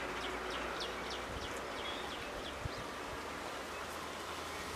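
Outdoor ambience with a small bird chirping: a quick run of about eight short, falling chirps in the first two seconds, then a few scattered calls, over a steady background hiss.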